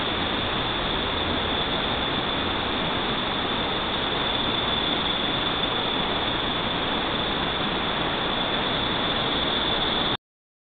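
Steady, even hiss with a thin high whine on top, cutting off suddenly near the end.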